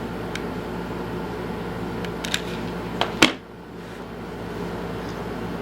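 Steady room hum with a few sharp clicks about two and three seconds in, the last one the loudest, as a lighter is struck to melt the freshly cut end of a mower's recoil starter rope.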